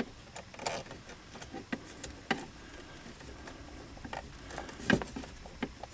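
Small plastic clicks and taps as a wiring-harness connector is handled and pushed into the steering motor's control module, with a sharper click about five seconds in.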